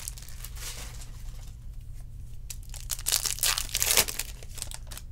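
Hands shuffling and flicking through a stack of 2020 Bowman baseball cards: papery rustling and card flicks, busiest from about two and a half to four seconds in.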